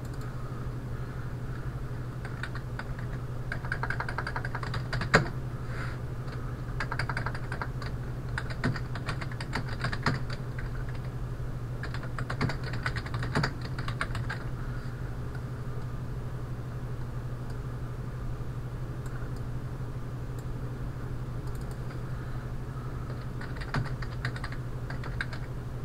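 Typing on a computer keyboard: bursts of quick keystrokes separated by pauses, with one sharper click about five seconds in and a longer pause in the middle, over a steady low hum.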